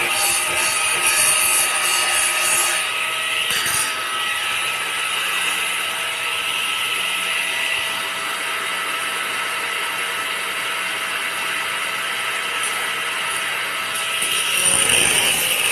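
Handheld corded power tool running steadily against a steel railing, a constant motor whine over a hiss, growing louder and fuller near the end.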